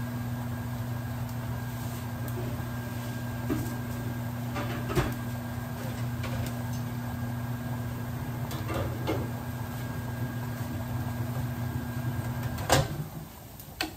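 Over-the-range microwave oven running with a steady low hum, cut off abruptly with a click as its door is opened about thirteen seconds in; a second sharp click follows just before the end.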